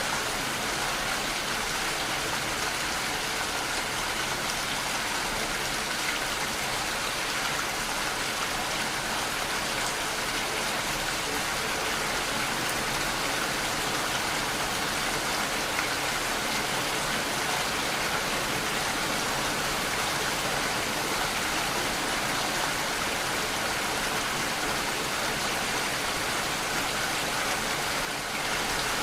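Steady, even rainfall, a constant hiss of falling rain with no distinct drops or thunder standing out.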